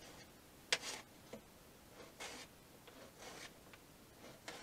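Kitchen knife slicing a gendarme dry sausage into pieces on a cutting board: a sharp tap just under a second in, then a few short, quiet cuts about a second apart.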